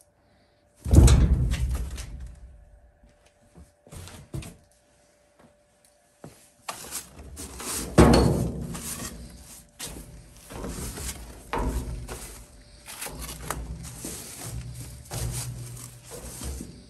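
A loud thud in a steel dumpster about a second in, fading over about a second. Then, from about six seconds on, a push broom scraping and knocking on the dumpster's steel floor as it mashes a plush toy, with the loudest knock about eight seconds in.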